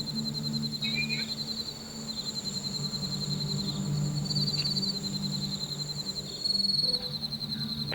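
Crickets chirping in a steady high pulsing trill, with a steady low electrical hum, heard through a doorbell camera's microphone at night.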